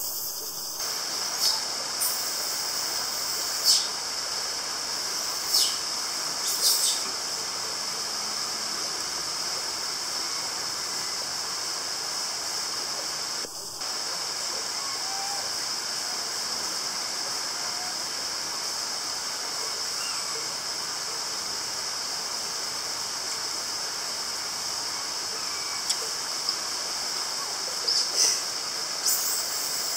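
Steady forest ambience: a high, even insect drone over the rush of running water, with a few short, sharp high-pitched sounds scattered near the start and near the end.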